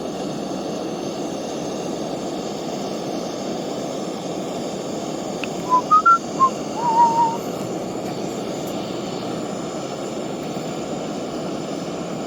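Steady rushing of a portable gas camping stove burner with a small kettle of water boiling on it. About halfway there is a cluster of short, rising whistle-like notes, then a brief wavering whistle, louder than the rushing.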